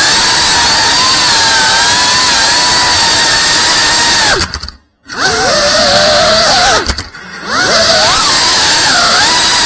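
FPV quadcopter's brushless motors and propellers whining at a steady, slightly wavering pitch, heard close up from the onboard camera. About halfway through, and again a couple of seconds later, the throttle is cut and the sound falls away almost to nothing, then comes back with the pitch swooping up and down as the motors spool back up.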